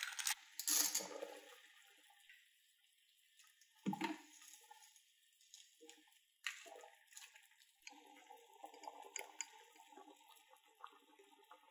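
Pot of salted water at a rolling boil, bubbling and hissing, with spaghetti stirred in it by metal tongs that click against the steel pot. Before that, a few sharp knocks near the start and a single thump about four seconds in.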